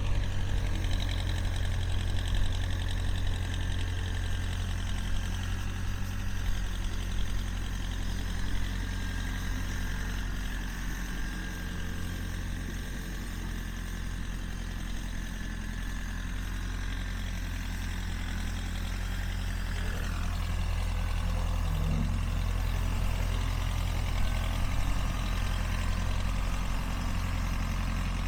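Case 580B backhoe's engine running at a steady idle.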